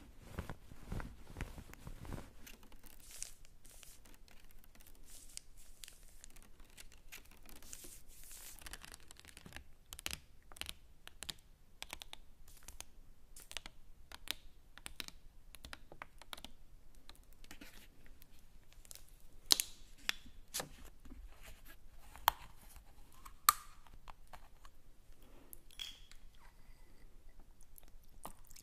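Close-miked ASMR trigger sounds: irregular soft clicks and crackles, dense at first, then sparser. A few sharper, louder clicks come about two-thirds of the way through.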